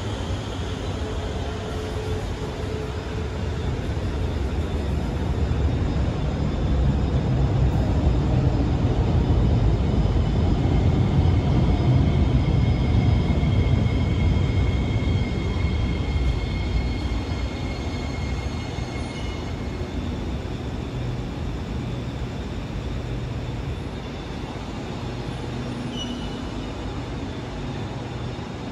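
Alstom Movia R151 metro train at an underground platform: a steady low rumble with faint high electrical whine tones, swelling to its loudest about halfway through and then easing off.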